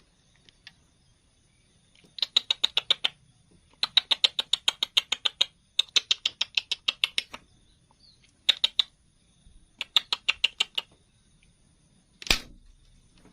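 An insect chirping in five bursts of rapid, evenly spaced high clicks, each burst up to about a second and a half long. Near the end comes a single sharp crack, the loudest sound.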